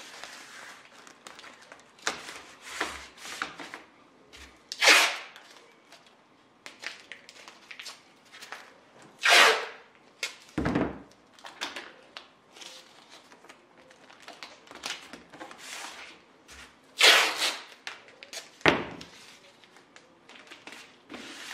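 Green painter's tape pulled off the roll in several short, sharp rips, with quieter rustling and taps of tape and plastic film being handled between them.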